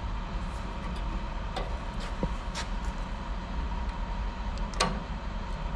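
Metal pliers clicking and scraping against a spring-loaded thermostat as it is pressed and turned into its housing, a handful of sharp separate clicks, the loudest near the end. A steady low hum runs underneath.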